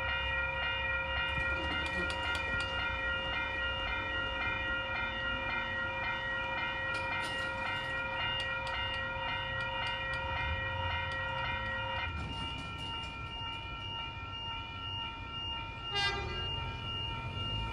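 Level crossing warning bells ringing rapidly and continuously as the boom gates come down, with clicks here and there. About twelve seconds in the lowest tone of the ringing drops out. A brief sharp falling sound comes near the end.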